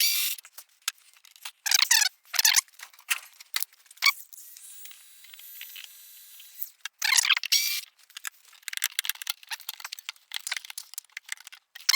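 A hand ratchet with a T30 Torx bit clicking in short bursts as screws are backed out, with clinks of tools and metal parts between. The two longest runs of clicking come about two seconds in and again about seven seconds in.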